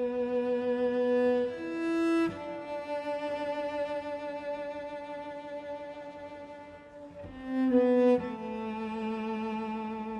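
Solo cello playing a slow bowed theme in long held notes with vibrato. The pitch changes about two seconds in and again near the end.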